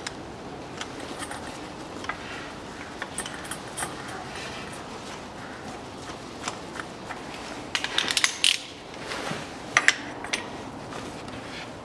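Socket ratchet clicking in short runs, with metal clinks of the socket and extension, as the bolts holding a new external CVT oil filter are tightened. The sharpest clusters of clicks come about eight and ten seconds in.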